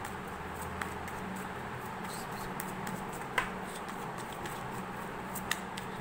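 A tarot deck being shuffled by hand, the cards slipping and tapping against each other in small irregular clicks, with a sharper click about three and a half seconds in. A steady hiss and low hum lie underneath.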